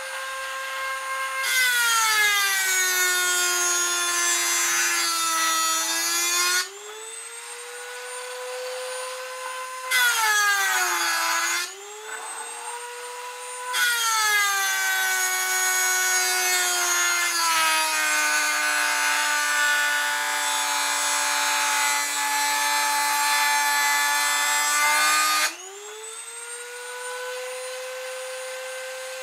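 Dremel rotary tool in a router attachment, spinning a metal cut-off wheel that grinds into a metal bar. Three times its high whine drops in pitch and a loud harsh grinding sets in: a pass of about five seconds a second or so in, a brief one near ten seconds, and a long one of about eleven seconds from around fourteen seconds. Between passes it spins freely back up to a steady whine. The pitch drop is the motor slowing under the load of a deep cut.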